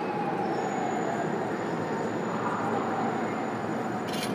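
Steady traffic and street noise of a busy city street, with a short hiss near the end.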